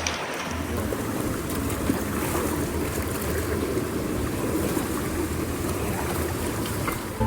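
Steady rush of the Virgin River's flowing water.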